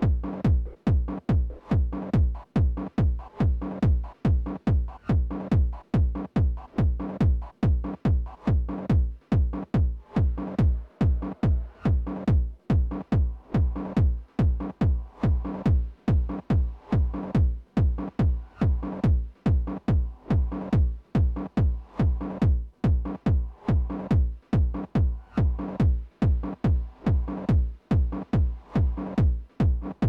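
Hardgroove techno loop playing back: a steady four-on-the-floor kick drum at about two and a half beats a second, under a sustained pitched texture layer.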